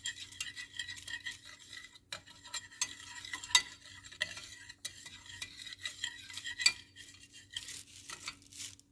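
Wire whisk stirring a dry cornmeal dredge in a glass baking dish: light gritty scraping with irregular clinks of the wires against the glass, two sharper clinks standing out about three seconds apart.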